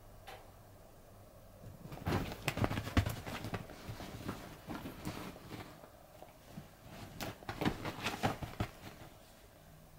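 Cat pouncing on a bed after a wand toy: its paws thump and scrabble on the bedcover in two flurries, about two seconds in and again later on, the loudest thump near the start of the first.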